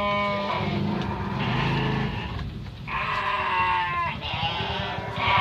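Garut sheep bleating, three calls: one right at the start, one about three seconds in, and one near the end, over a low rumble.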